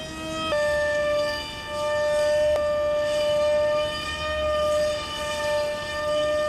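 RC model jet's motor and propeller running at high throttle: a steady, high whine with many overtones, its pitch stepping slightly lower about half a second in and drifting a little as the plane manoeuvres.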